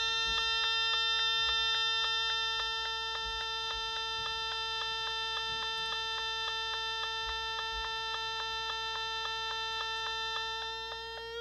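Noise Toaster analog synthesizer sounding one steady buzzy tone, rich in overtones, that pulses about four times a second, played through a small bare loudspeaker. Near the end the tone colour shifts as the filter knobs are turned.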